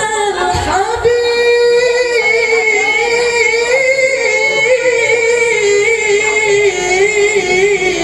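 A single high voice singing a long, drawn-out melismatic line of a hadroh sholawat over loudspeakers, holding wavering notes with ornamented turns and no drum accompaniment.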